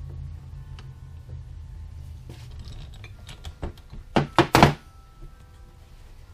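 Metal hand tools being handled on a workbench: a few light clicks, then three sharp metal knocks in quick succession a little past four seconds in, as locking pliers, a ratchet and a socket are worked on a small motor's sprocket nut and set down. A steady low hum runs underneath.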